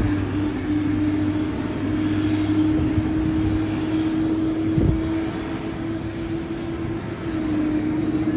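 Boeing 787 airliner's jet engines running at taxi power: a steady hum with one held low tone over a rushing haze.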